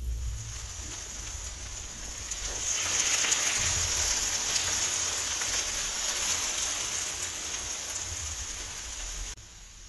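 Chopped tomatoes sizzling in a hot frying pan after olive oil is poured in, as they are stirred with a spatula; a dense hiss that gets louder a couple of seconds in and cuts off suddenly near the end.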